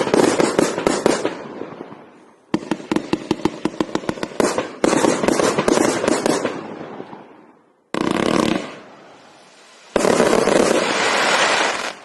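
Riakeo Grandshow 1.2-inch fireworks cake firing in rapid volleys of shots, several a second, each run trailing off before the next. Near the end comes a long dense burst, then it stops.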